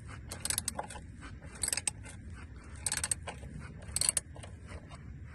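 Ratchet clicking in short runs as a 14 mm socket works loose the oil pan drain plug, with scattered metallic clinks between the runs.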